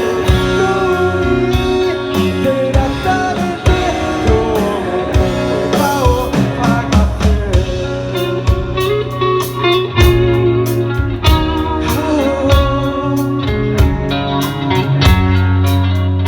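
Rock band playing an instrumental break: a lead guitar carries the melody with bent, wavering notes over bass and drums.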